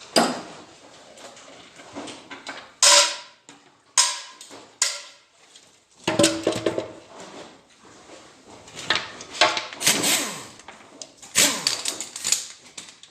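Metal engine parts and tools clanking and knocking as they are handled: a dozen or so sharp clanks, some with a short metallic ring.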